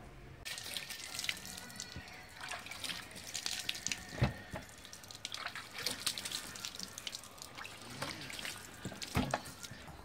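Water splashing and dripping as a watermelon is rubbed and washed by hand, the water running off a plastic bin lid. Two louder dull knocks come about four seconds in and again near the end.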